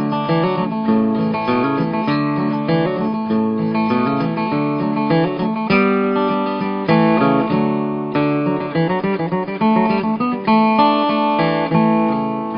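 Acoustic guitar music, plucked notes in a steady stream.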